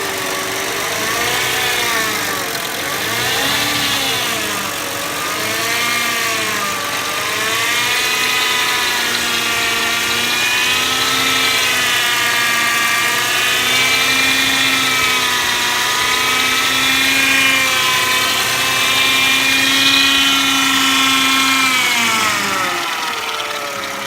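Howling whine from a 1999 Mercedes ML 320 while driving: several tones together whose pitch swings up and down every couple of seconds at first, then holds higher and steadier, and drops away near the end. The owner does not know what causes the howl.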